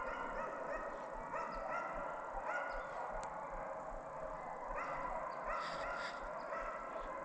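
A pack of deer hounds baying on the track of a running doe, several dogs giving repeated, drawn-out calls over one another.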